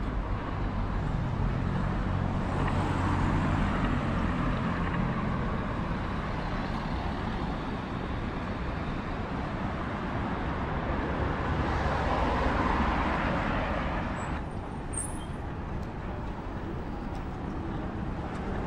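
Road traffic: motor vehicles passing, over a steady low engine rumble, with one vehicle swelling past a few seconds in and another around twelve seconds in.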